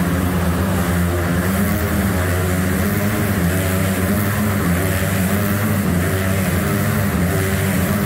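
Motorcycle engines running at steady revs inside a steel-mesh globe of death, a continuous drone with no break.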